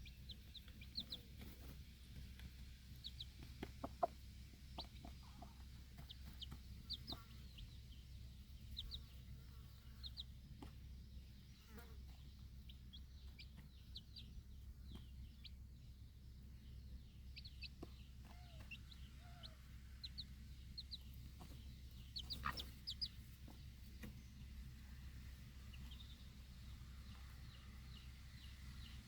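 Baby chicks peeping in short, high cheeps scattered throughout, with a mother hen clucking low now and then, all faint over a steady low rumble. A few sharp, louder knocks sound, about four seconds in and again about three-quarters of the way through.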